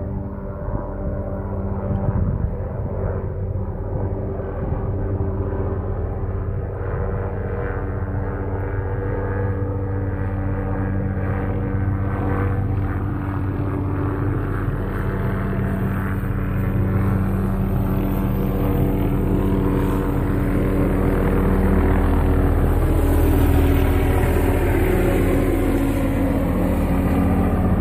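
A low-flying aircraft's engine running with a steady hum, growing gradually louder through the second half as it comes closer.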